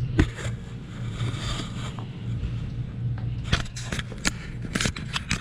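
Small hard parts being handled: a knock just after the start and a run of sharp clicks and scrapes from about three and a half seconds in, over a steady low hum.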